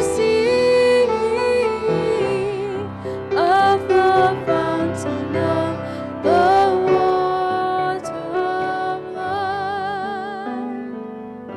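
A song with a young woman's voice singing through a microphone over instrumental accompaniment, with held notes and vibrato near the end.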